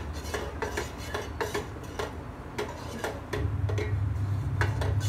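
A metal spoon stirring milk mixed with cornflour and plain flour in a stainless-steel saucepan, clinking against the pan's side and bottom in irregular light ticks, about two or three a second. A low steady hum comes in about three seconds in.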